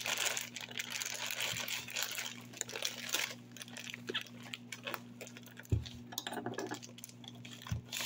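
Plastic snack bag crinkling as it is rolled and twisted shut by hand, densest in the first few seconds, then softer rustles with a couple of light knocks. A steady low hum runs underneath.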